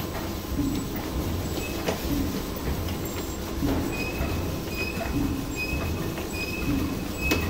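Sugar cube forming machine running through its cycle: a steady mechanical rumble with regular clunks, sharp clicks and short high squeaks as rows of cubes are pushed out onto the mesh conveyor.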